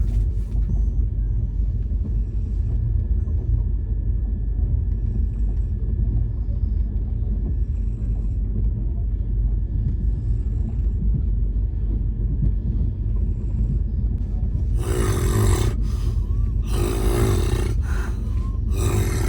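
Steady low rumble of a moving train. Near the end a person snores three times, each snore about a second long and about two seconds apart.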